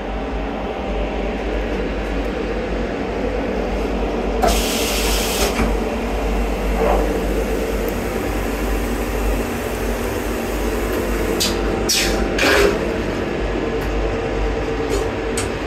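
Vande Bharat Express running at speed, heard from inside the coach's lavatory: a steady low rumble and rolling noise, with a few short hisses breaking through near the middle and toward the end.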